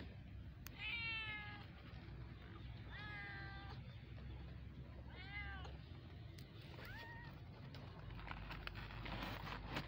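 Very young kittens mewing: four thin, high cries a second or two apart, the first two falling in pitch, the third rising and falling, the last one short.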